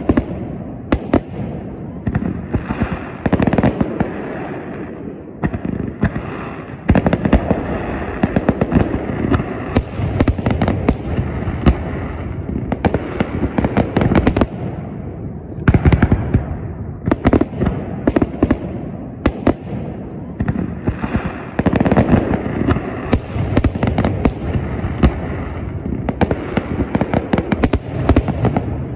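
Fireworks display: aerial shells bursting in many loud bangs that follow closely on one another, with no pause.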